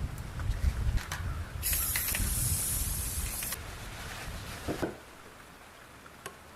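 A hiss of spray lasting about two seconds, after a low rumble that dies away in the first second; a short knock follows near the end.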